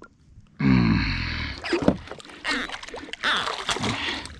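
A large channel catfish being landed by hand at the side of a small boat: irregular water splashing and thrashing with knocks against the boat. A man gives a short falling grunt of effort about half a second in.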